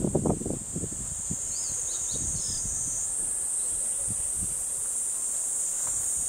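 Steady high-pitched drone of summer insects, growing a little louder about three seconds in. A few short bird chirps come through about two seconds in, and there are a few low thumps in the first second.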